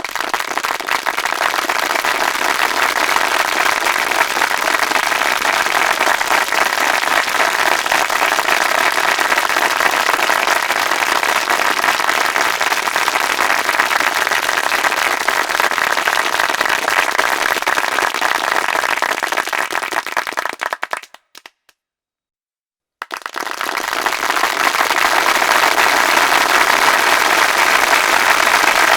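A large audience applauding, a dense steady clatter of many hands clapping. About two-thirds of the way through the applause dies away into a couple of seconds of silence, then a second round of applause from a large crowd starts up and builds.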